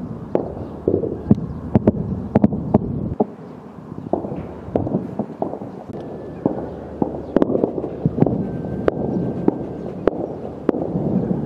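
Sporadic gunfire across the city: irregular sharp cracks, sometimes several in quick succession, over a low continuous rumble.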